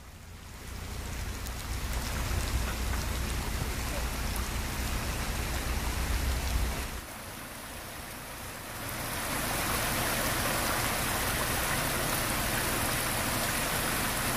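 Steady rain with muddy floodwater rushing over rocks, heard as an even hiss. A low rumble sits underneath for the first seven seconds or so. After a change about seven seconds in, the hiss turns brighter and fuller.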